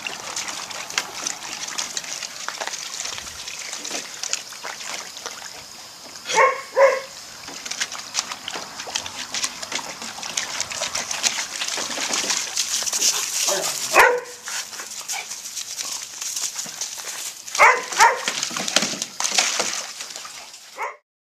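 Puppies barking: six short barks, a pair about six seconds in, one near the middle, another pair around eighteen seconds and one at the very end. Water splashes and sloshes underneath as they wade in a plastic kiddie pool fed by a running garden hose.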